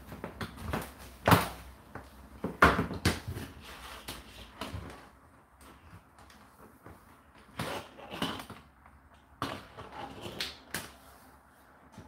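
Indesit IDC8T3 condenser tumble dryer running, its load of laundry tumbling in the drum with irregular thumps and knocks over a faint low hum. The knocks come in clusters, with quieter gaps in the middle and near the end.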